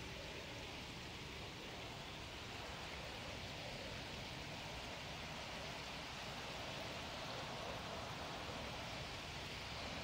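A small stream running over rocks, giving a steady, even rush of water.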